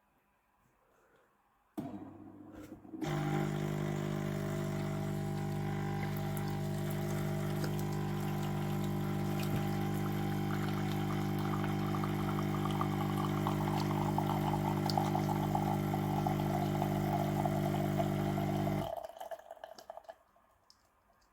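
Beko CaffeExperto bean-to-cup coffee machine dispensing: its pump hums steadily for about sixteen seconds as coffee pours, then cuts off. A short, lower whirr comes just before the pump starts.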